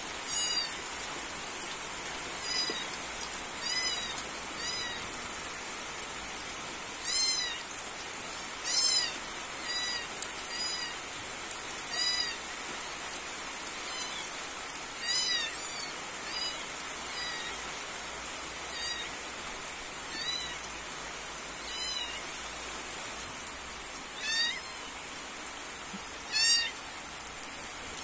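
Steady rain falling, with an animal's short, high calls that rise and fall in pitch, repeating about eighteen times at uneven intervals.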